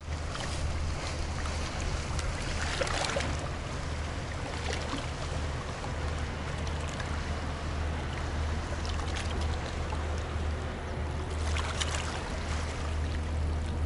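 Low steady drone of a passing river cruise ship under the wash of river water, with small waves lapping and splashing against a rocky bank, loudest about three seconds in and again near the end.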